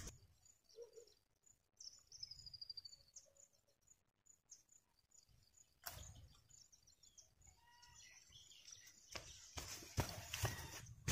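Faint outdoor background with small bird chirps and a short trill about two seconds in. Near the end, footsteps on grass and rustling come close as a man carrying seedling baskets on a shoulder pole walks right past.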